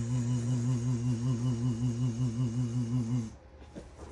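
A man making a machine sound effect with his voice: a steady, low buzzing hum that wobbles rapidly in pitch, stopping a little over three seconds in.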